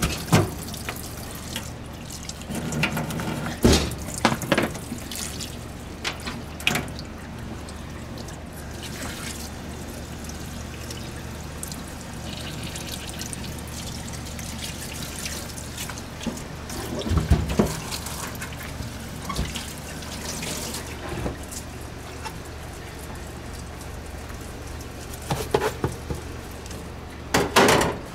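Tap water running into a stainless steel sink over raw pork being rinsed and scraped with a knife, with a few sharp knocks and clatters of meat and tools against the sink. A steady low hum runs underneath.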